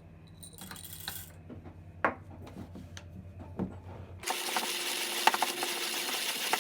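A few sharp clicks and knocks from the hand-cranked 1930s Peter Dienes (PeDe) conical burr coffee grinder. From about four seconds in comes a steady crunching rasp as the burrs, set to their finest setting, grind the coffee beans, with sharp cracks of single beans breaking.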